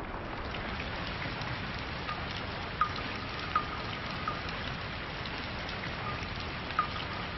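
Steady rain falling, an even soft hiss, with a few single drops plinking now and then.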